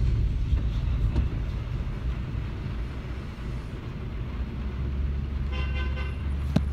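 Steady low rumble of a van's engine and tyres, heard from inside the moving vehicle.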